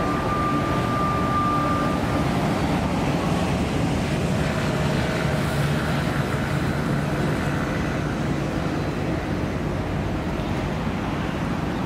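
Steady low rumble of a warship's engines as the ship moves past, mixed with wind on the microphone. A thin high tone fades out about two seconds in.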